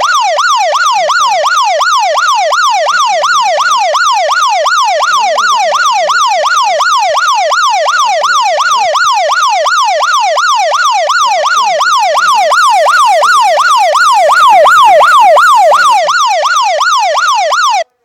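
Smartphone anti-theft alarm app sounding through the phone's speaker, set off by unplugging the charger. It is a loud electronic siren wailing rapidly up and down, about two and a half sweeps a second. It cuts off suddenly near the end.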